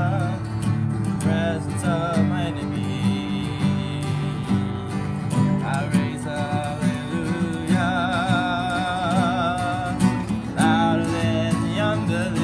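Live worship music: acoustic guitar strummed in steady chords, with a melody of long, wavering held notes above it, most likely sung.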